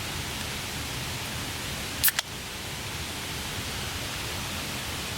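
Steady rain falling on a tarp, an even hiss with no let-up. About two seconds in there is one sharp double click.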